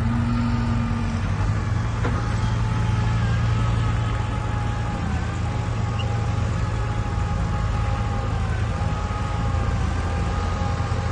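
Heavy diesel earthmoving machine running steadily under load, a deep engine hum with a thin high whine over it that wavers slightly in pitch.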